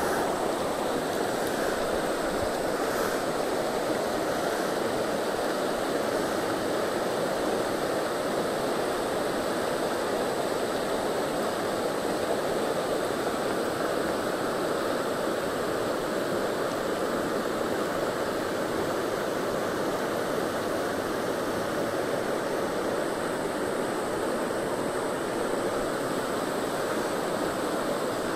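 Shallow, stony river running steadily over rocks and riffles.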